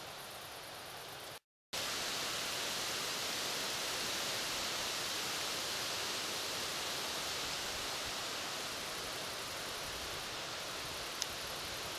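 Steady rushing noise of wind through the forest foliage. It cuts out completely for a moment about one and a half seconds in, then comes back a little louder. There is a single faint click near the end.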